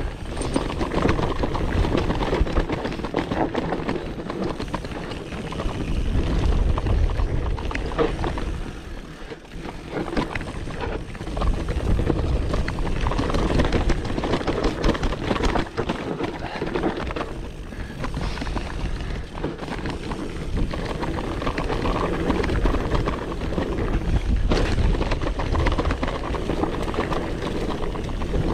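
Mountain bike running down a dirt downhill trail: a steady rush of tyre noise and wind on the microphone, with constant rattling and knocking over bumps. It eases briefly about nine seconds in.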